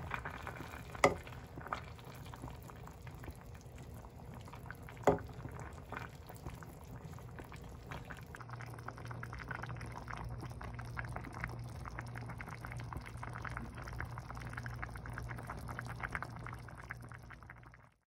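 Kimchi stew simmering in a steel pot, a steady bubbling with many small pops. Two sharp taps stand out about one and five seconds in, and the sound fades out just at the end.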